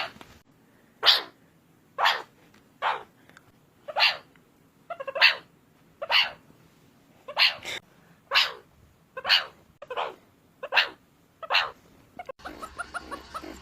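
Meerkat giving a series of short, sharp barking calls, about one a second, a dozen or so in all. Near the end a different stretch starts: a busy chatter of quick, high chirps.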